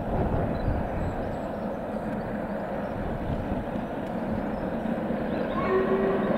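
Jubilee-class three-cylinder steam locomotive working hard up a gradient with a train, its exhaust beating in a dense rumble. It grows a little louder as it approaches.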